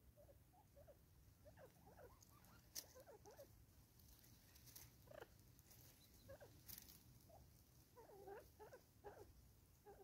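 Faint, soft calls from birds: short low chirps and clucks in scattered clusters, with a few sharp clicks in between.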